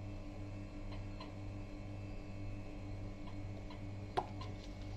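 A few faint, irregular clicks and small squirts as tomato ketchup is squeezed out in dots onto a paratha, the sharpest click a little after four seconds, over a steady low hum.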